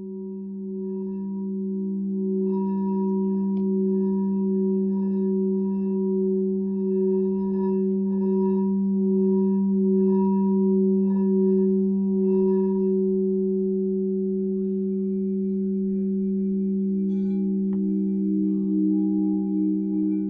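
Tibetan singing bowl sounding one long low hum with higher overtones that pulse and waver. It swells up over the first couple of seconds, and a further overtone comes in about two-thirds of the way through.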